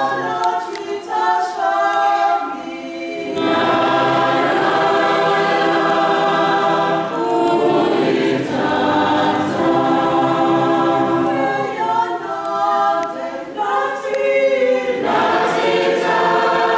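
Choir singing a slow, sustained hymn in long held notes, phrase after phrase, with brief breaths between phrases.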